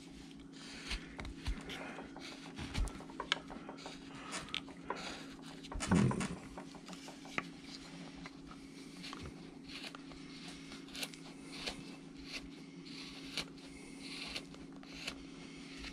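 Number 9 hand gouge cutting and paring wood: many short, irregular scrapes and clicks as it takes off chips, over a steady low hum, with one louder thump about six seconds in.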